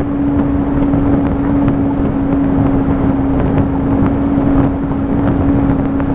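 A car driving over a gravel dirt road, heard from inside the cabin. Its engine and tyres make a steady, even rumble with a constant hum, and there are a few light clicks from the rough surface.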